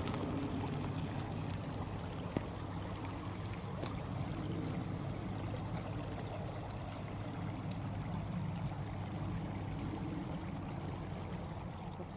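Steady rush of a shallow stream flowing through a stone-lined channel, with a low rumble underneath.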